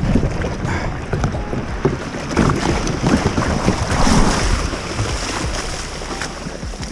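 Small waves breaking and washing over a pebble shore as a kayak is landed through the shore break, with wind rumbling on the microphone.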